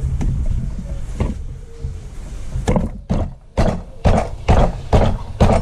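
Steady low hum, then about six sharp knocks roughly half a second apart through the second half, from work on a differential being reassembled.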